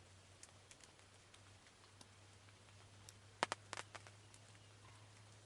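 Near silence under a low steady hum, with scattered faint ticks and a quick cluster of sharp taps about three and a half seconds in.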